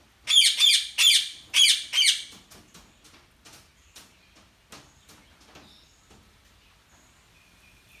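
Indian ringneck parakeet calling: a quick run of loud, harsh, high squawks in the first two seconds, then softer scattered chirps and clicks.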